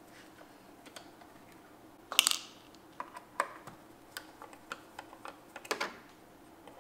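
Small clicks and taps of a Torx screwdriver working screws out of the metal fader panel of an Avid SC48 mixing console. Two louder clattering clicks come about two seconds in and near the end.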